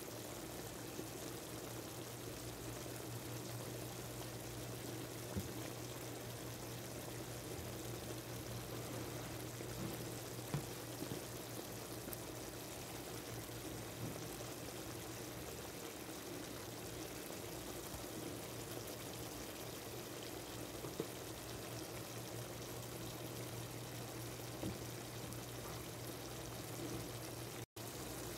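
Mutton cooking in oil and its own juices in a pot, a steady sizzling hiss over a low steady hum, with a few faint ticks. The sound cuts out for an instant near the end.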